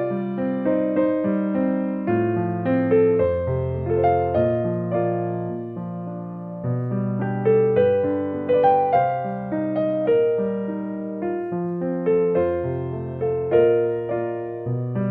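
Background piano music: a slow, gentle melody over low bass notes, each note struck and fading.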